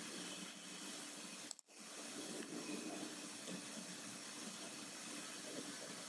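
Faint steady hiss of a recording's background noise (room tone), with a brief dropout to silence about a second and a half in.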